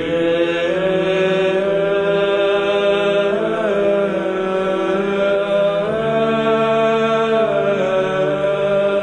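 Slow vocal chant: voices hold long notes over a steady low drone, and the melody moves in slow steps.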